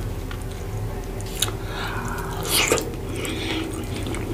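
Close-miked wet chewing of a mouthful of fufu and egusi soup, with a few sharp wet mouth clicks, the loudest a little under three seconds in.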